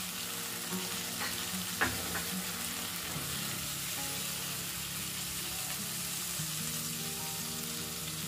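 Onion masala sizzling in hot oil in a kadai as besan (gram flour) is stirred in with a steel spoon, the spoon scraping the pan a few times in the first two seconds. The masala is nearly fried, with the oil starting to separate, and the besan is being roasted in it.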